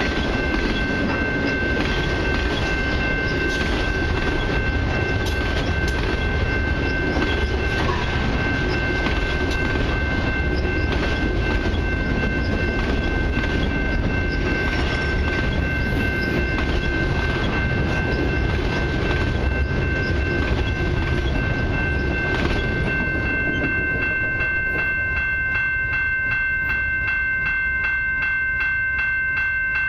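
Autorack freight cars rolling past with wheel-on-rail noise over the steady ringing of a level-crossing bell. About 22 seconds in, the rolling noise drops away as the end of the train passes, leaving the crossing bell ringing on its own.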